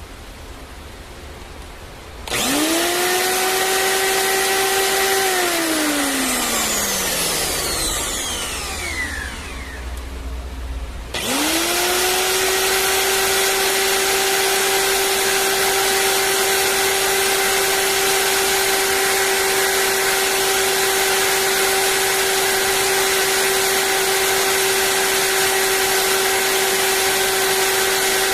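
A thread-making machine's motor being test-run: it spins up to a steady whine about two seconds in, runs briefly, then winds down with falling pitch. About eleven seconds in it spins up again and runs steadily until it starts to wind down near the end.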